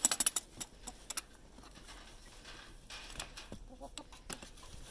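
Metal latch and wire-mesh door of a chicken run clicking and rattling as it is handled, a quick run of sharp clicks in the first second, then a few quieter ones. Hens cluck softly in the background.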